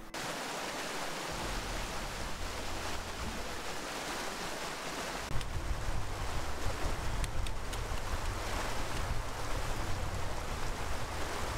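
Wind blowing steadily, with low rumbling buffets on the microphone from about a second in that grow stronger about five seconds in.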